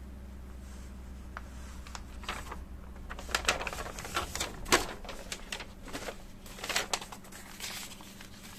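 A paper leaflet rustling and crackling as it is handled and folded up, in a run of crisp crinkles that starts about two seconds in and is loudest near the middle.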